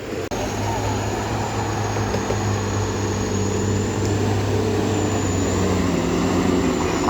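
Heavy diesel truck engine running steadily under load on a steep climb, a low drone with a faint high whine above it.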